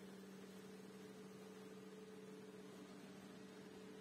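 Faint steady hum with a low tone and a higher one above it, over light hiss.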